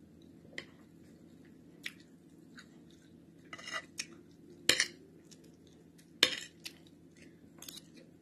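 Metal spoon clinking and scraping against a ceramic bowl while eating rice and stew: several separate short clinks, the loudest two a little before the middle and about six seconds in.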